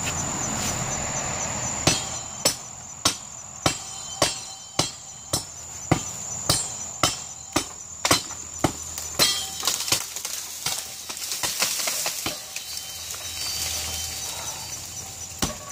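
A steel broadsword chopping into a small dogwood trunk in evenly spaced whacks, about two a second and some fourteen in all. Then the trunk gives way and the tree comes down with a few seconds of cracking and rustling branches.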